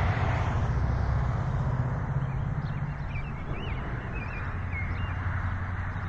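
Steady low outdoor rumble, with faint, high bird chirps scattered through it.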